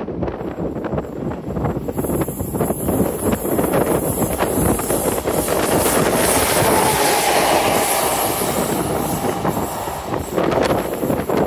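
Two SNCF BB 25500-class electric locomotives coupled together passing close by on the line: a swelling rush of wheels on rail and running gear that is loudest about halfway through, with a faint falling whine as they go by, then dies away as they recede.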